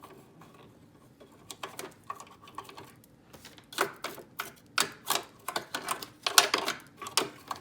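Irregular clicking and tapping of a lint-cleaning brush working against the sewing machine's parts around the bobbin area, sparse at first and louder and more frequent from about halfway through.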